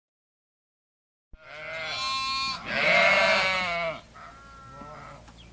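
Sheep bleating: two loud, wavering baas back to back, then a fainter bleat near the end, starting about a second and a half in.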